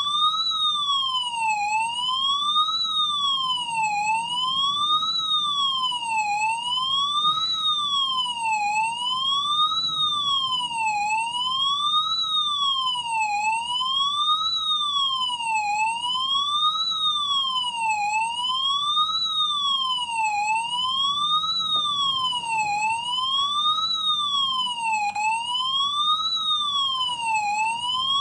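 Electronic fire-alarm siren sounding without a break, a loud tone sweeping steadily up and down about once every second and a half.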